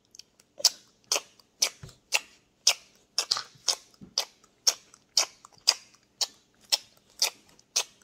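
Sharp, evenly spaced clicks, about two a second, starting just after the start and keeping a steady, machine-like beat.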